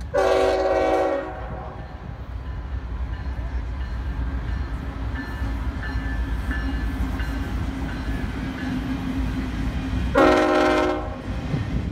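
Union Pacific diesel freight train passing, its air horn sounding two blasts of about a second each, one at the start and one about ten seconds in. Between the blasts, the steady low rumble of the locomotives and double-stack container cars rolling by.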